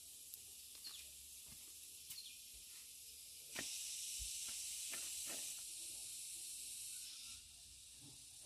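A faint, steady high-pitched hiss that grows louder about three and a half seconds in and eases back near the end, with a few faint clicks.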